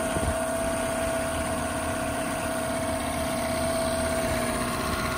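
A 2006 Honda 8 hp four-stroke outboard idling steadily in a test tank, with a constant mid-pitched tone over the engine rumble.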